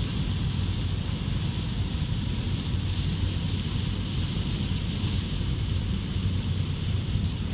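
Steady rain and wet-road noise inside a moving car: a low rumble of tyres on the wet road under a constant hiss of rain on the car.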